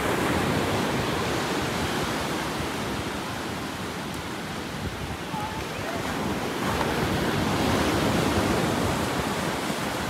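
Steady wash of ocean surf mixed with wind buffeting the microphone, growing a little louder about two-thirds of the way through.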